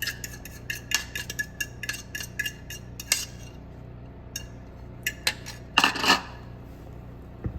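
A utensil clinking and scraping against a mixing bowl as bananas are folded into a batter by hand: a quick run of light clicks with a faint ring, then a few scattered taps and a louder scrape about six seconds in.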